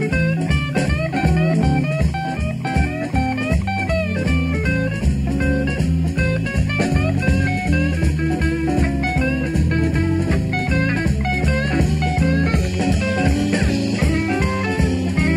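Live blues-rock band playing an instrumental passage: electric lead guitar playing quick runs of notes over bass and drums.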